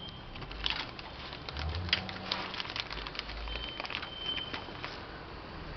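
Small metal rocker-arm shims being handled and set onto the valve tips of a cylinder head: scattered light clicks and ticks of metal on metal, with some rustling of handling.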